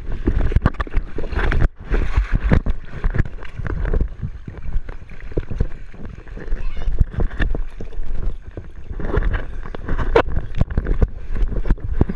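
Pool water sloshing and splashing against a GoPro camera held at the water's surface, a steady run of irregular sharp splashes and knocks.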